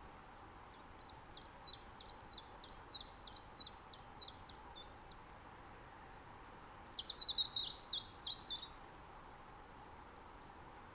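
Common chiffchaff singing: a run of about a dozen short, high, falling notes at roughly three a second. About seven seconds in comes a louder, faster burst of high notes, over a faint steady hiss of ambient noise.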